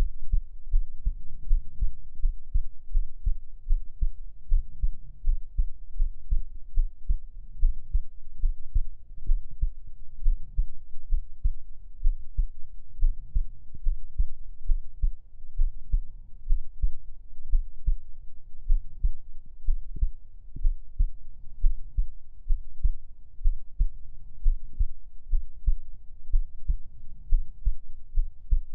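A human heartbeat heard close up: a steady, regular rhythm of dull, low thuds with nothing high-pitched in it.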